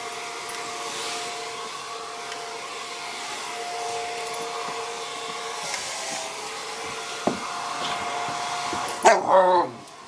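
Handheld hair dryer blowing steadily, a whining motor tone over the rush of air. About a second before the end, a puppy gives a loud bark at it.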